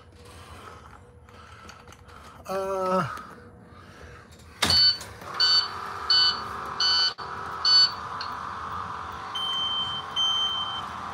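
Electronic warning beeps from a school bus's onboard systems: a click, then five short high beeps about two-thirds of a second apart, over a steady hum. Near the end come two longer, lower beeps.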